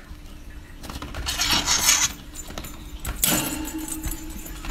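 Two bursts of rasping, rattling scrapes about a second in and again past the three-second mark, from a budgie scuffling at its cage or toys while it guards them.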